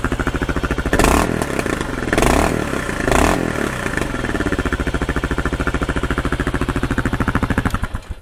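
2022 Kawasaki KLR650's single-cylinder engine idling through an FMF Powercore 4 exhaust with the quiet core baffle fitted, blipped three times about a second apart, then back to idle and cutting off near the end. Still very loud, like a motocross pipe.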